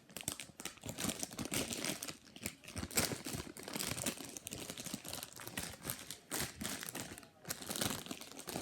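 Plastic packaging crinkling and rustling in the hands in a run of irregular crackles, as a squishy toy is handled and taken out of its wrapper.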